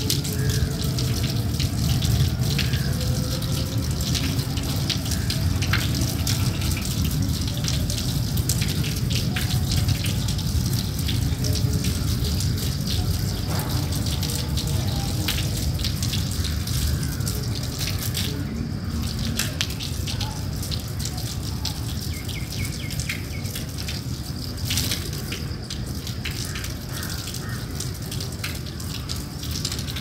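Steady rain falling on water: a continuous hiss of rainfall with many small drop splashes, easing slightly toward the end.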